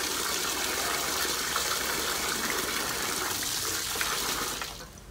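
Steady rush of running water, with hands splashing pieces of softshell turtle as they are washed in a plastic basin of water. The rush cuts off near the end.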